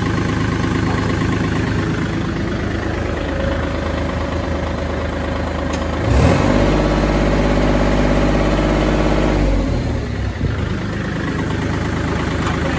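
Kubota L4018 tractor's diesel engine running with the hand throttle raised. About six seconds in, its note turns louder and deeper for some three and a half seconds as the engine takes the load of the hydraulic three-point hitch, then settles back.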